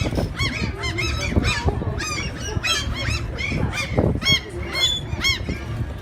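Gulls calling, many short calls that rise and fall in pitch, several a second and overlapping, over a low steady rumble.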